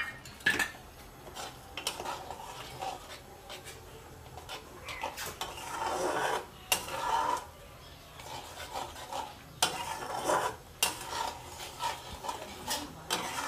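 Metal spatula stirring a thickening sauce in a kadai, scraping and clinking irregularly against the pan.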